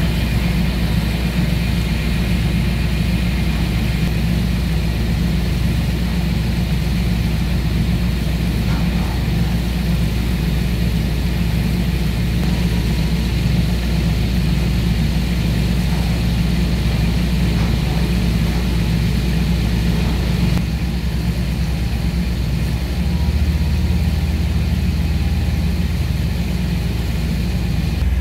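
A small boat's engine running steadily under way, heard from on deck as a loud low drone. The pitch of the drone shifts a little about three-quarters of the way through.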